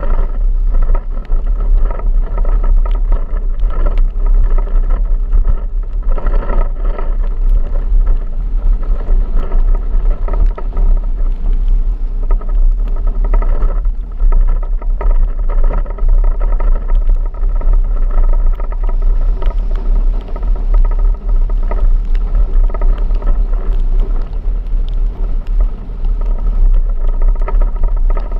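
A vehicle driving: steady engine and road noise with a deep, constant rumble underneath.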